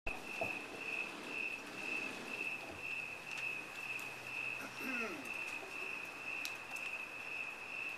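A cricket chirping steadily: one high, even note pulsing about twice a second.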